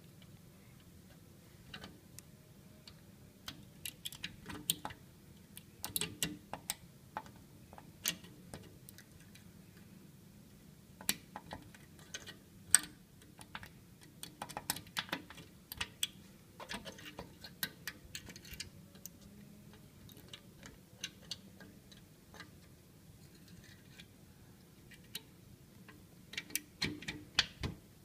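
Irregular small metallic clicks and ticks of a bent paper-clip wire being worked inside a glass display-cabinet push lock and against its toothed ratchet bar, to open the lock without a key. The clicks come in uneven clusters with short pauses between them.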